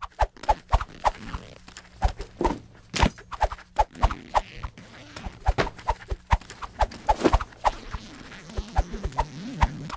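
Quick, irregular clicks and taps of a pen working over a drawing surface, some with a short ring.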